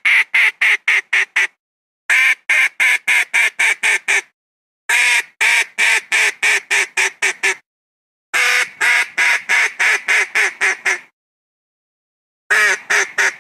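Philippine duck (papa) quacking in rapid runs of about eight to ten quacks, about four a second, with short pauses between runs: a duck call played as a hunting lure to bring wild ducks down.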